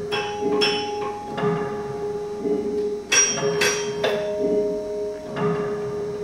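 Metal sound objects struck several times at uneven spacing, each strike ringing on in clear, sustained tones, over a steady hum at one pitch.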